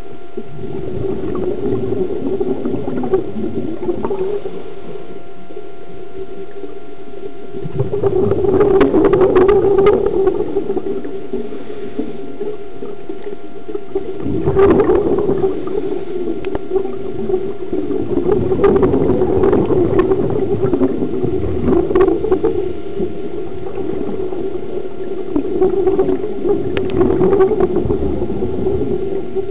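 Scuba diver's exhaled breath bubbling out of a regulator underwater, gurgling in bursts every few seconds over a steady hum.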